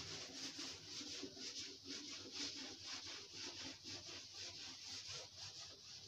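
Blackboard duster rubbing back and forth over a chalkboard, wiping off chalk writing in quick, even strokes.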